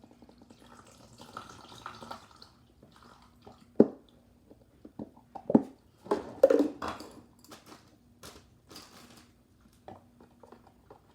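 Clear slime ingredients, a water-like clear liquid, being poured and worked in a bowl: soft dripping and wet squishing, with a few sharp knocks of the container and utensil in the middle. A faint steady hum sits underneath.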